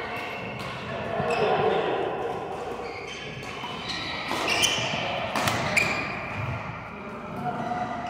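Badminton rally: a few sharp racket-on-shuttlecock hits in the middle, with the players' court shoes squeaking on the floor.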